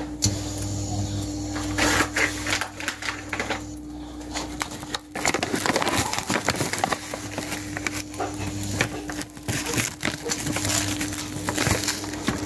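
A metal spoon stirring sugar into milk in a stainless steel saucepan: irregular clicks and scrapes against the pot, over a steady low hum.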